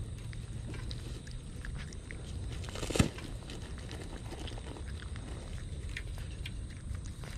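Kitten chewing and licking wet cat food from a metal tray, many small irregular wet clicks. One sharp knock about three seconds in is the loudest sound.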